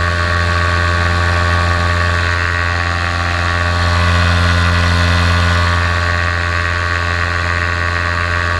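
Paramotor engine and propeller running steadily in flight, heard from the pilot's seat, swelling slightly about halfway through.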